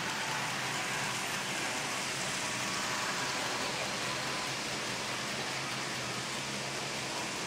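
N-scale model trains running on the layout: a steady rolling hiss of small metal wheels on the track, with a low steady hum under it.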